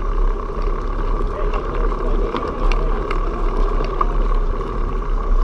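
Mountain bike riding over a dirt singletrack, heard through a bike-mounted camera: a steady rumble of tyres and rattling bike, with a few small scattered clicks.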